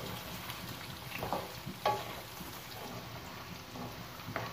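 Diced carrots and chicken sizzling as they fry in a metal wok, a steady hiss, with a wooden spatula stirring and knocking against the pan a few times.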